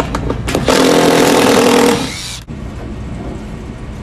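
Milwaukee 12-volt cordless impact driver on a condenser panel screw: a few short blips, then one loud run of about a second that tails off and stops abruptly.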